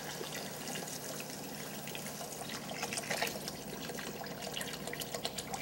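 Chicken stock poured in a steady stream from a plastic container into a stainless-steel Dutch oven of vegetables and chicken, splashing as the pot fills.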